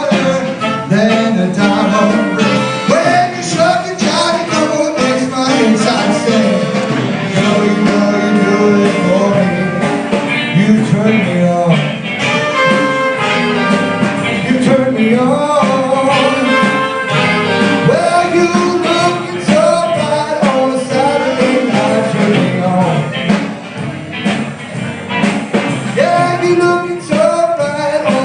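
A soul-style love song playing, with singing and a band including brass over a steady beat.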